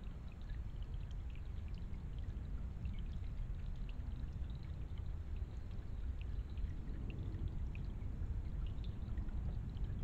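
Small woodland stream trickling over mossy rocks into a shallow pool: a steady low water noise with faint, scattered short ticks throughout.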